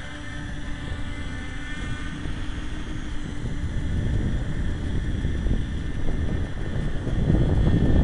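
RC tricopter's motors and propellers humming steadily, fading after about three seconds as it flies off. Wind buffets the microphone with a low rumble that grows stronger toward the end.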